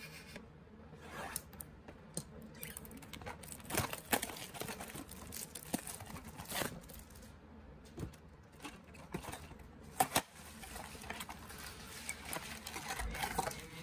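A trading-card pack being opened and its cards handled: intermittent rustling and crinkling of the wrapper and cards, with scattered sharp clicks, the loudest about ten seconds in.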